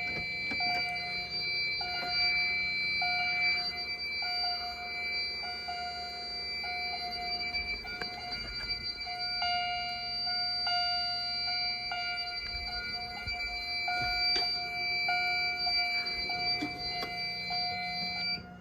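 Fire alarm system in alarm: Wheelock chime strobes chime a short note over and over at a steady pace, over a steady high-pitched electronic tone. Both cut off suddenly near the end.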